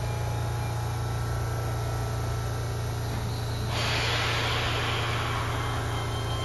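Keihan 13000-series electric train standing at an underground platform with a steady low hum. About three and a half seconds in, a sudden hiss of compressed air starts and then slowly fades, typical of the air brakes releasing just before the train pulls away.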